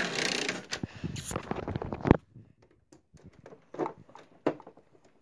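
Hands moving a plush toy inside a plastic toy dollhouse elevator close to the microphone: rustling and scraping for about two seconds, ending in a sharp plastic clack, then a few soft knocks.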